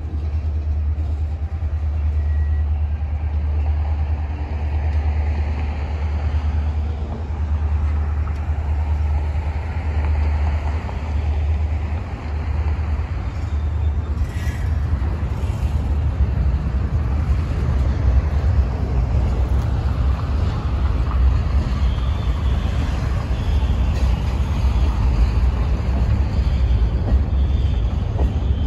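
Freight cars of the Norfolk Southern L54 local (tank cars, covered hoppers and log-loaded flatcars) rolling past as the train moves off: a steady low rumble of wheels on rail, with a single sharp clank about halfway through.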